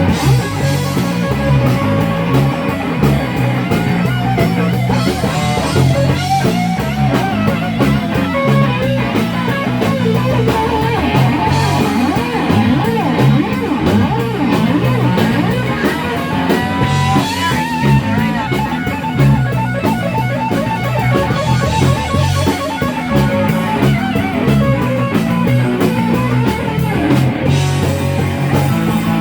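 Live rock band playing an instrumental passage: an electric guitar line with bending notes over bass and drum kit, with a steady beat.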